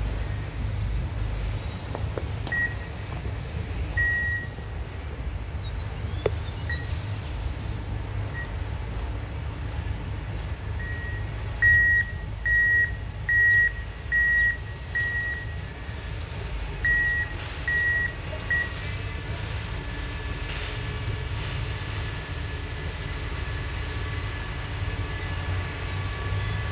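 Electronic back-up alarm beeping at one steady high pitch. A few scattered beeps come first, then a regular run of about eight half-second beeps near the middle. Under it is a low steady rumble, and toward the end the drone of an approaching engine grows in.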